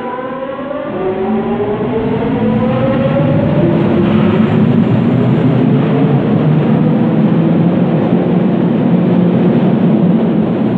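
UTDC ICTS Mark I rapid-transit train accelerating away from the platform. Its linear induction motor drive gives a whine of several tones that rises steadily in pitch, over a rumble that grows as the cars roll past.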